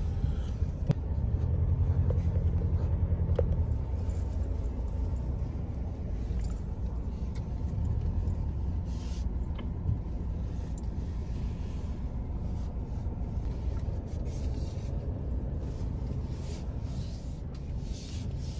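Ford Ranger Raptor driving off-road over soft sand, heard from inside the cabin: a steady low rumble of engine and tyres, louder for the first few seconds, with a few light knocks.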